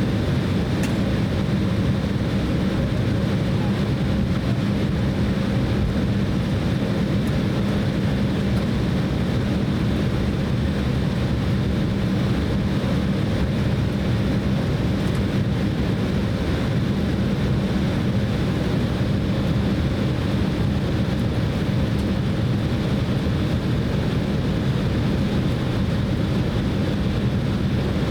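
Steady cabin noise inside an Embraer E190 airliner: the even hum of its General Electric CF34-10E jet engines and air system, with a constant low drone and no change in thrust.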